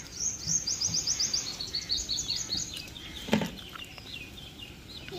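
A bird singing: a fast run of high, rapid chirps, then a slower series of lower notes. A single short knock sounds about three seconds in.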